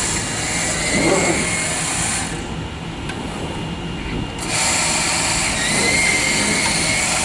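Double-head circular-knife CNC cutting machine running, a steady high whine over machine hum. The whine drops out for about two seconds in the middle, then comes back.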